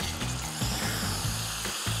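Onion, spice and tamarind chutney mixture sizzling in a pan as a wooden spoon stirs it, with background music.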